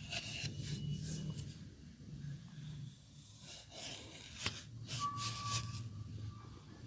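Hands rubbing and patting skin during a massage, a run of short scratchy strokes, with one sharp click about four and a half seconds in.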